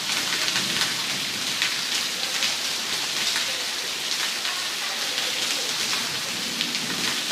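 Heavy rain pouring onto wet paving and puddles: a steady hiss with scattered small splashes throughout.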